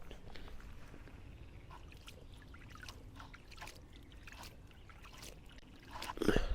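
Water being poured into fishing groundbait, a faint trickle with small splashes and ticks as it wets the mix.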